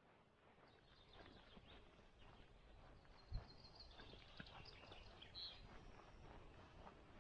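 Near silence of open-air ambience with faint bird chirps in the middle and one short low thump about three and a half seconds in.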